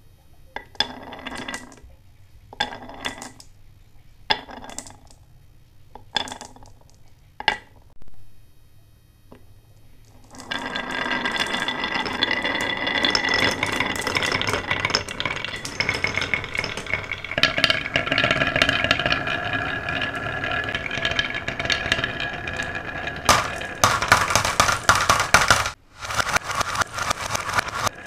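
Marbles running on a wooden marble run: single marbles clink and roll down every second or two, then from about ten seconds in a continuous clatter of many marbles rolling and clinking together, broken off briefly near the end.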